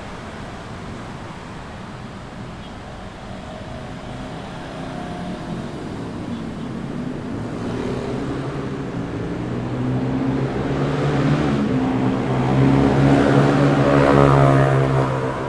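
Busy city street traffic at night, with a motor vehicle's engine drawing near and growing louder through the second half, loudest just before the end as it passes close, then fading.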